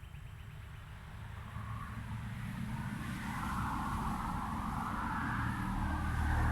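A road vehicle approaching, its engine rumble and tyre noise growing steadily louder.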